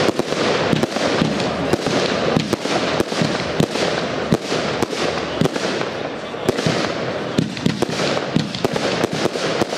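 Fireworks going off in quick succession: many sharp bangs at irregular, close intervals over a continuous crackle.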